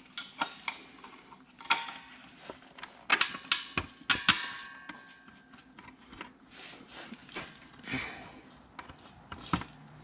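Hand tools working on 13 mm bolts at the front of an ATV frame: irregular metallic clinks, clicks and knocks, with a ringing clink a little over four seconds in.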